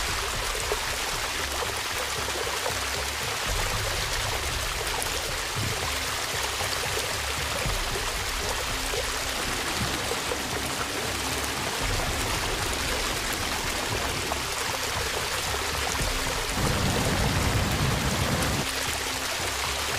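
Steady rush of fast-flowing floodwater, with a faint sustained background music drone underneath. The low rumble grows louder for about two seconds near the end.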